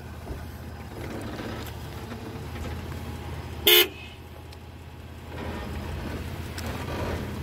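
Off-road SUV engine running low and steady as it crawls slowly over rock, with one short, loud horn toot about three and a half seconds in.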